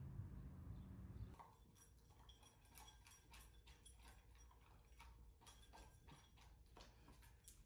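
Two dogs eating from ceramic bowls: faint, irregular crunches and clicks of food and bowls, starting about a second and a half in.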